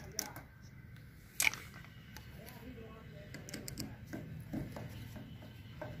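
Small clicks and light taps of a gas geyser's push-button assembly and its metal bracket being handled and fitted back into place, with one sharper click about a second and a half in and a run of small ticks later on.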